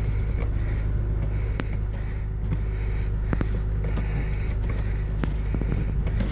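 Acura RSX four-cylinder engine idling with a steady low hum, and a few sharp clicks as the tail-light bulb socket and housing are handled.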